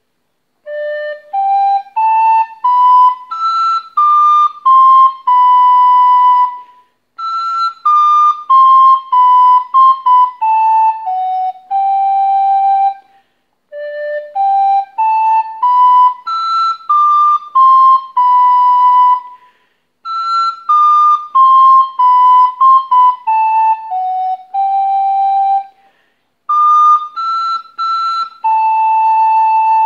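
Plastic soprano recorder playing a slow hymn melody solo, one clear note at a time, in phrases of about six seconds with short pauses for breath between them; the second phrase repeats the first.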